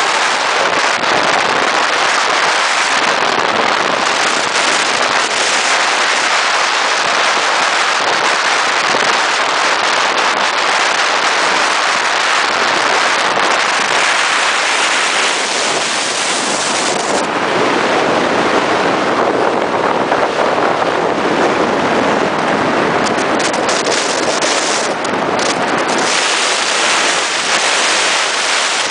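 Steady loud rush of wind and road noise from a Scania G420 truck on the move, heard from its cab. The hiss turns duller and deeper a little past the middle.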